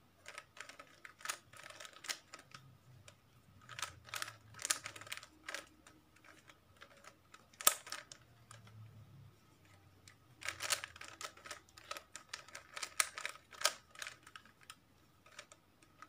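Plastic 3x3 Rubik's cube being turned by hand: quick flurries of clicking and clacking as the layers are twisted, with short pauses between, and one sharp louder click about halfway through.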